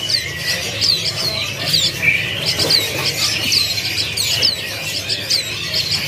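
Caged songbirds chirping: short, high, falling chirps repeated two or three times a second, over a steady low hum.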